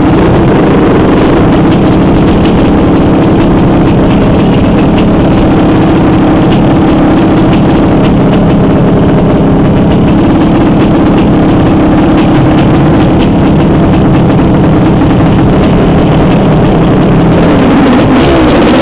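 Dirt bike engine running loud and steady at low revs, the revs climbing near the end.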